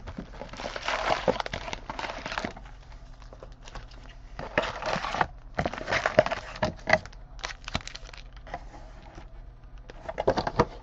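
Plastic wrapping on a trading-card box and packs crinkling and tearing as it is opened, in several bursts with short pauses between.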